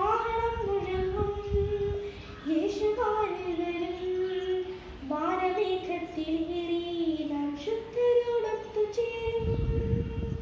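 A girl singing a Malayalam Christian song solo, with no accompaniment, in phrases of long held notes.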